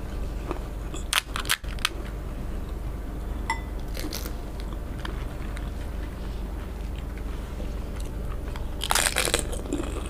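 Crisp, hollow fried panipuri (fuchka) shells crunching as they are cracked open and bitten. The crackly crunches come in a cluster about a second in, once around four seconds, and in a louder burst near the end.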